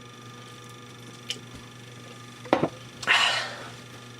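A steady low electrical hum, with a faint click, then a sharp knock of something being handled about two and a half seconds in, followed at once by a short, sharp breath out through the nose.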